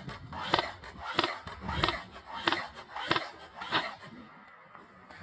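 A regular series of knocks, about seven in all, roughly two-thirds of a second apart, stopping about four seconds in.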